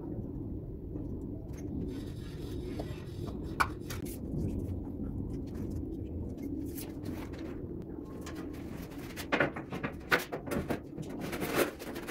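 Low, steady background rumble in a small bare room, with a single light click and then a run of sharper clicks and taps near the end as a tiler handles a tape measure against the tiled wall.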